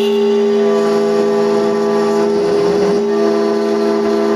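Spindle of a homemade CNC router running with an end mill roughing into an aluminium plate: a steady whine over cutting noise, which wavers briefly about two and a half seconds in.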